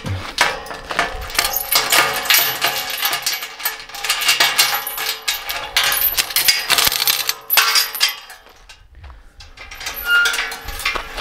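Repeated metallic clinking and jingling made of many sharp clicks, dying down about eight seconds in and picking up again just before the end.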